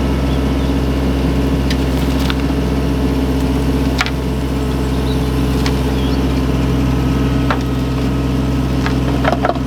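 Diesel engine of compact earthmoving machinery running at a steady speed, with scattered sharp clicks and knocks over it, a cluster of them near the end.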